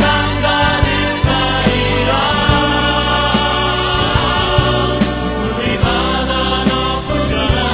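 A Christian worship song: a group of voices singing over a band accompaniment with a steady beat.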